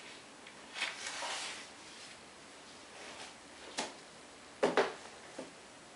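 A homemade cookbook in a binder being handled: a soft rustle about a second in, a short click near four seconds, then a knock and a smaller knock as it is set down on the kitchen counter.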